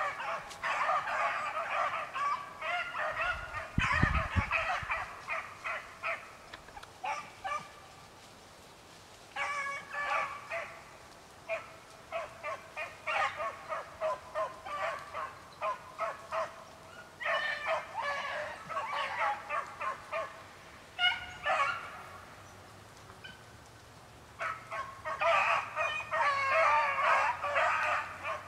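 A pack of beagles baying from a distance while trailing a rabbit, in runs of short, rapid barks broken by brief pauses. A brief low thump about four seconds in.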